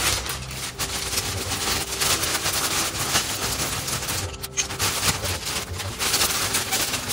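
Clear plastic compression bag crinkling and crackling in a dense run as clothes are stuffed into it and pressed down to compress them.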